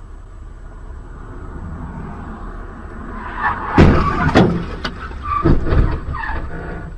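Car crash: a series of loud sudden impacts and crunching about four seconds in, and a second group of bangs a second and a half later as a white sedan slams into the traffic ahead, over a steady rumble of road noise.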